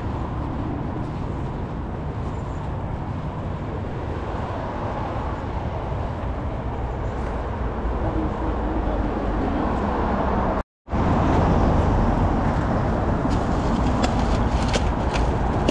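Steady road traffic noise from cars on the roads around a motorway roundabout. It is a little louder after a short break about eleven seconds in. Near the end a plastic bag crackles as it is pushed into a street litter bin.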